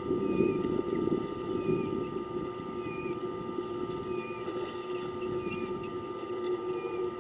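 A steady engine-like drone, loudest at the start and easing off a little, with a bird giving the same short chirp about once every second or so.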